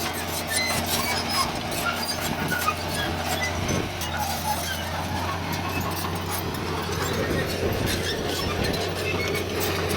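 Diesel engine of heavy earthmoving machinery running steadily at a constant pitch, with scattered light clanks and rattles.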